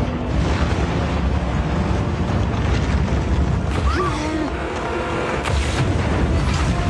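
Layered action-film sound effects: a heavy, steady low rumble of vehicle engines and a submarine surging up through sea ice, with sharp impacts about five and a half seconds in.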